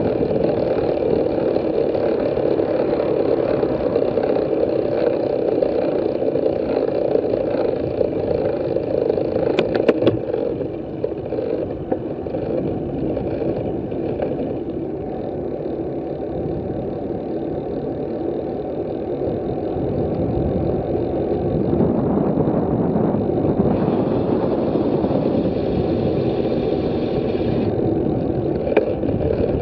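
Steady wind rumble on a bicycle-mounted camera's microphone while riding, growing stronger in the last third as the bike speeds up going downhill. Two sharp clicks, one about a third of the way in and one near the end.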